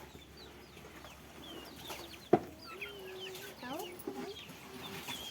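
Domestic fowl calling, with several drawn-out calls held at one pitch in the second half, among high chirping from small birds. A single sharp click comes about two seconds in.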